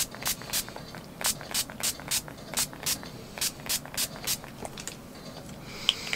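NYX Dewy setting spray bottle being shaken and sprayed: a quick, regular run of short hissy strokes, about three a second, that stops about four and a half seconds in.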